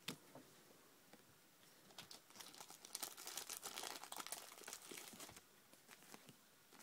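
Faint crinkling and rustling of a foil booster-pack wrapper being handled, as a cluster of quick crackles from about two to five seconds in, after a single light click at the start.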